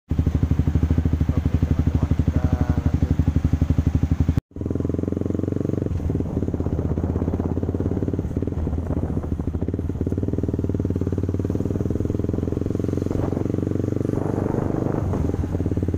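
Motorcycle engine close to the microphone, first with a fast, even pulsing, then after a brief dropout about four seconds in a steadier drone as the bike rides along the street.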